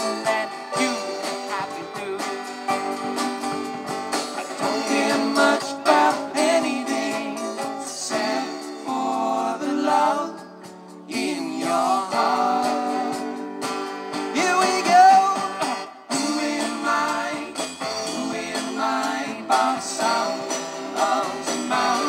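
Live band playing a song: strummed guitars with a singing voice. The music drops out briefly about halfway through.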